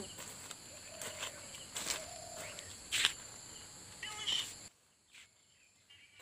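Steady high insect buzz, with a few sharp snaps and rustles of fern stems being picked by hand and a brief call about four seconds in; the sound then drops much quieter.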